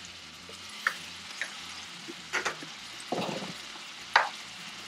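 Ground beef sizzling steadily as it browns in a frying pan, with a few sharp clicks and knocks from the utensils against the pan, the loudest about four seconds in.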